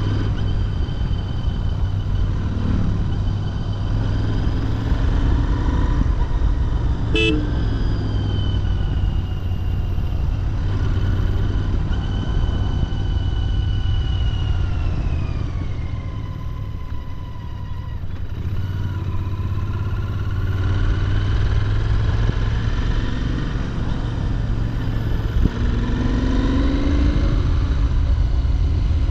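Royal Enfield Continental GT650's 648 cc parallel-twin with its stock exhaust running under way, a steady low rumble whose note falls away in the middle and climbs again toward the end as the throttle changes. A brief sharp sound cuts in about seven seconds in.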